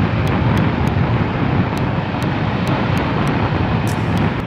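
Suzuki Gixxer 155's single-cylinder engine running steadily as the motorcycle rides along, under a dense, even rush of road and wind noise.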